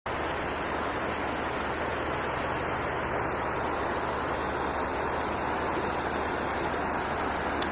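Steady, even rush of river water.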